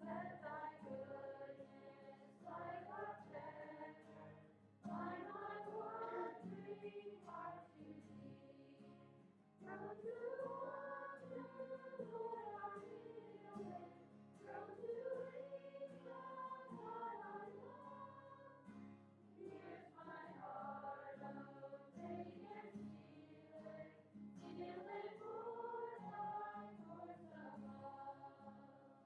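Faint choir or congregation singing a hymn in phrases of a few seconds, with a steady low accompaniment beneath.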